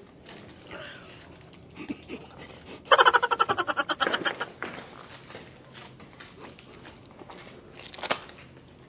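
Crickets trilling steadily in a night-time chorus. About three seconds in, a loud, short burst of rapid pulses, about eight a second, fades out over a second and a half. A sharp click comes near the end.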